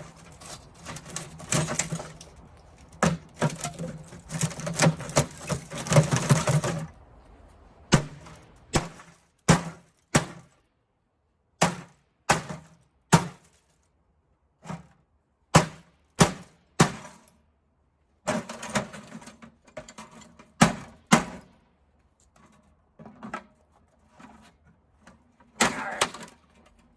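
A smashed CRT monitor being broken apart by hand to get at its copper, making cracking and knocking sounds. It starts with several seconds of dense clattering and cracking, then comes a string of single sharp knocks about a second apart.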